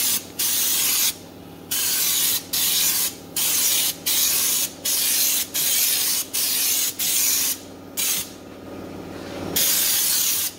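Compressed-air undercoating gun spraying stone guard from a screw-on can, fired in about ten short hissing bursts of roughly half a second each, then a pause and a longer burst near the end. A faint steady hum runs underneath.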